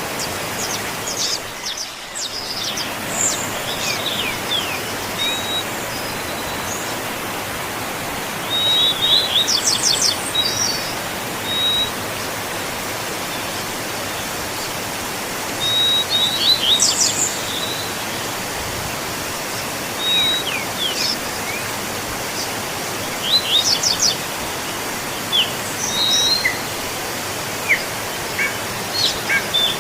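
Steady rushing of a waterfall, with birds singing over it. The songs come as phrases of rapid high notes and short whistles, repeating every few seconds, with the fullest phrases about a third of the way in, just past halfway, and again near the end.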